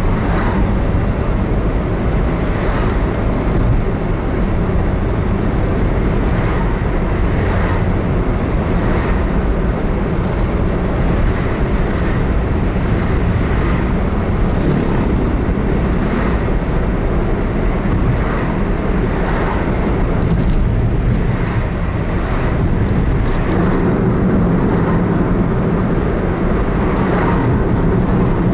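A car driving steadily, heard from inside: low engine and tyre noise on the road, with faint light knocks every second or two.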